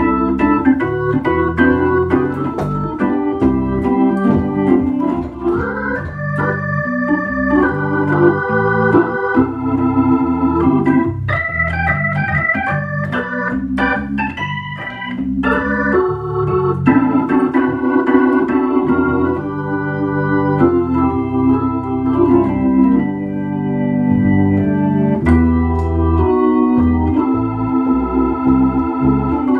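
Hammond B-3 organ played through a Leslie 122 rotating-speaker cabinet: chords and quick melodic runs on both manuals over changing bass notes, the tone wavering as the Leslie's rotors spin.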